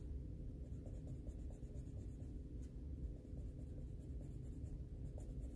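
Derwent Inktense pencil scratching quickly back and forth on a coloring-book page, laying down a base colour in short steady strokes.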